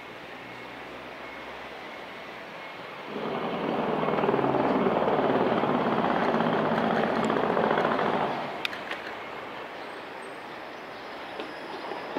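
Street traffic, with a large motor vehicle loud and close for about five seconds: it comes in sharply about three seconds in with a low engine hum, then drops away, leaving a few light clicks near the end.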